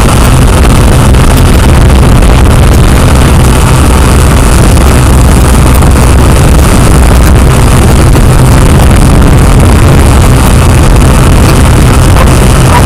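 Quadcopter drone's motors and propellers running steadily, picked up by its own onboard camera: a loud, unbroken buzzing hum with a strong low drone underneath.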